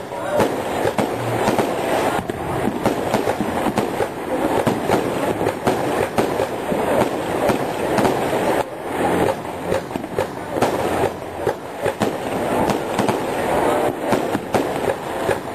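Aerial fireworks going off in a dense, continuous barrage of bangs and crackling, many bursts overlapping with no pause.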